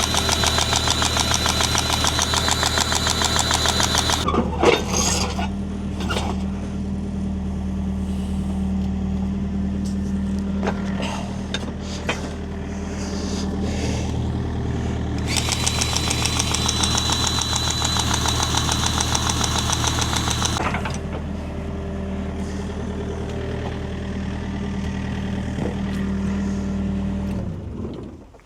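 Kobelco excavator's diesel engine running steadily, with two stretches of a louder, higher-pitched whine over it, at the start and in the middle, and a few knocks. The running stops abruptly near the end.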